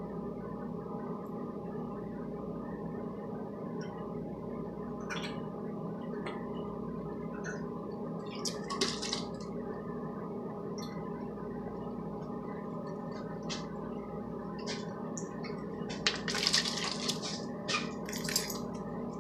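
A person drinking from aluminium cans: a few short bursts of sipping, swallowing and can-handling noise, over a steady low hum.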